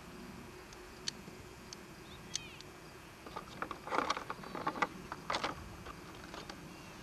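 Clattering and knocking of gear being rummaged in a plastic milk crate, a scatter of light clicks that turns into a dense run of knocks about three and a half to five and a half seconds in. A short, high, falling chirp sounds once, a little over two seconds in.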